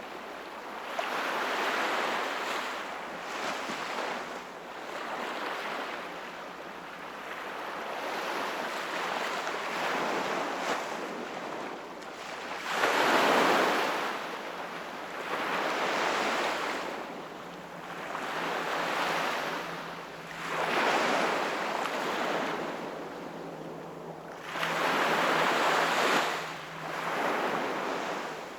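Sea waves breaking and washing onto the shore, surging and ebbing every few seconds; the biggest surges come about halfway through and near the end.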